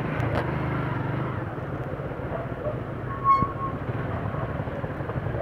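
Motorcycle engine running at low speed in city traffic, a steady low rumble mixed with road and traffic noise. A short high beep sounds about three seconds in.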